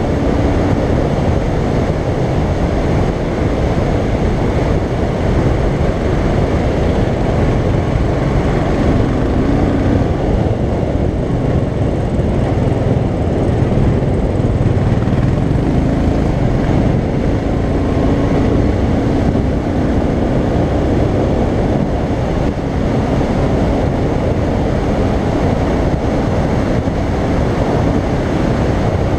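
Royal Enfield Continental GT 535's single-cylinder engine running steadily under way at road speed, heard through heavy wind rush on the bike-mounted camera's microphone, its pitch shifting slightly now and then.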